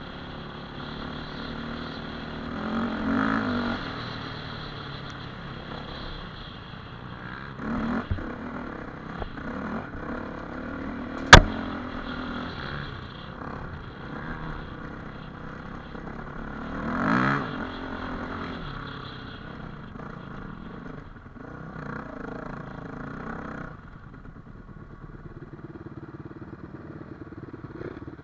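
Dirt bike engine running as it climbs a loose dirt trail, swelling in revs about three seconds in, again around eight seconds and around seventeen seconds. A single sharp knock about eleven seconds in is the loudest sound. For the last few seconds the engine runs lower and steadier as the bike slows to a stop.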